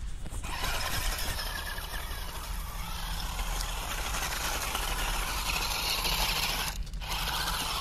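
Toy RC rock crawler's small electric motor and gearbox whirring as it drives through dry grass, with a steady hiss of grass and ground under the tyres. The sound drops out briefly about seven seconds in.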